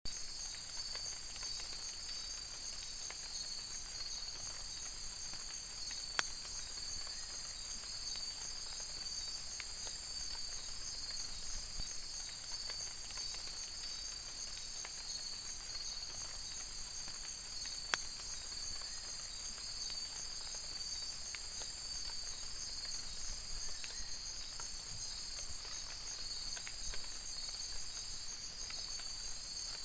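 Rainforest insect chorus of crickets and other insects: a steady, dense high-pitched buzzing and trilling. Two sharp clicks stand out, about six and eighteen seconds in.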